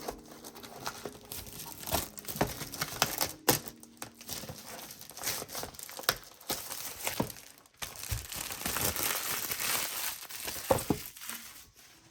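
Plastic wrapping on a toy box being crinkled and pulled off by hand: irregular crackling and rustling with some tearing.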